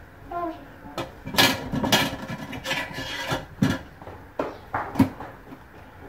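Hands shredding boiled chicken meat into a plastic bowl: rustling and rubbing, with a string of short knocks and clicks. The sharpest knock comes about five seconds in.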